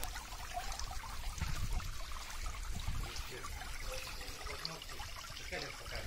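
Water from a small fountain jet spraying and trickling into a stone basin, a steady splashing with a low rumble underneath.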